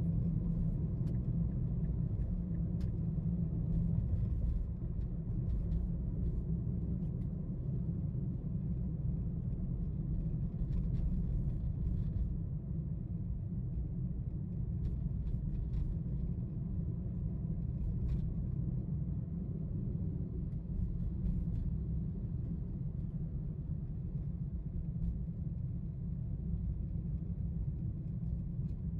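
Steady low rumble of a moving car's road and engine noise heard inside the cabin, with a few faint clicks.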